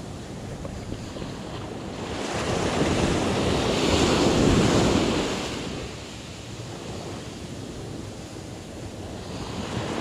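Ocean surf washing up a sandy beach: a wave swells in about two seconds in, is loudest around four to five seconds, then recedes, with a smaller swell near the end.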